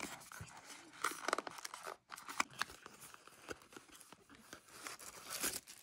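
Small cardboard box being opened by hand: card scraping and sliding as the inner tray is pushed out of its sleeve, with irregular light taps and paper rustles.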